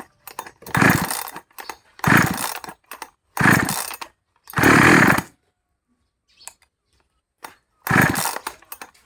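A 5200 two-stroke chainsaw being pull-started: five sharp pulls on the recoil starter, about a second and a half apart with a longer pause before the last, and the engine does not keep running. It is a hard-starting saw.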